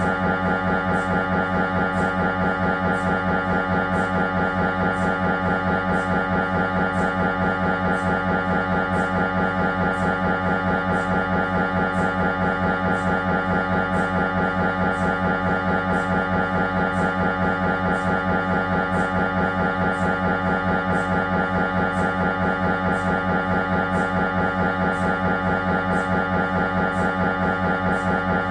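Siemens Magnetom Avanto 1.5 T MRI scanner's gradient coils running an imaging sequence: a steady, rapidly pulsing pitched buzz that does not change.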